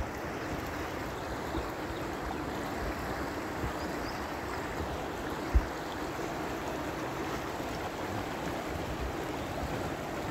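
Steady rushing of a fast-flowing river, with one short low thump a little over halfway through.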